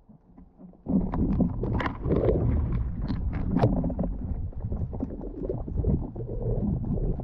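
Underwater water noise on a diver's camera during a spearfishing dive: a sudden, loud, low rumbling about a second in, with scattered clicks and knocks, as the camera moves through the water with a speared sheepshead on the line.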